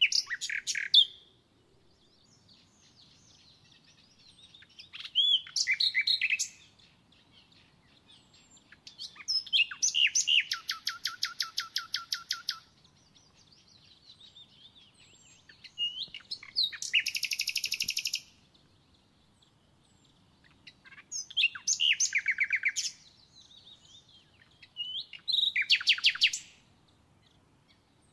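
A songbird singing: a short song phrase every four to five seconds, each made of a few high notes and ending in a fast trill of evenly repeated notes.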